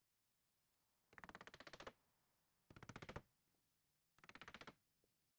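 Three short bursts of rapid, evenly spaced clicking from a power driver driving fasteners, faint, about a second and a half apart.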